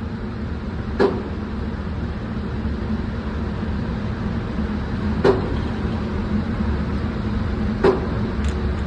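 Three single gunshots a few seconds apart, heard over a steady low hum of range ventilation.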